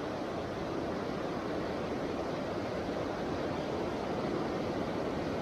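Steady rushing of a rocky creek's rapids, water flowing over stones.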